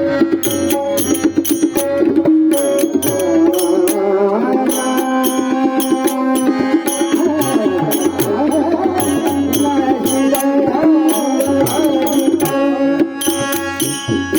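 Instrumental passage of a Marathi devotional abhang: held melodic notes over a steady rhythm of tabla-like drumming and sharp metallic strokes.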